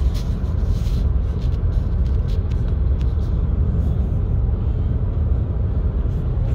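Steady low rumble of a car driving along at road speed, heard from inside the cabin, with a few light clicks during the first few seconds.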